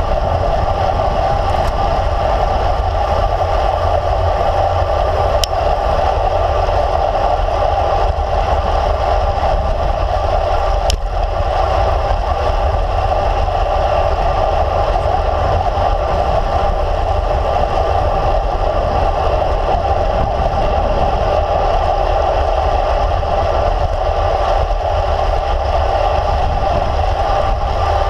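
Steady wind rush and tyre-on-road noise from a road bike rolling along a paved road, picked up by a camera on the handlebars, with two brief ticks.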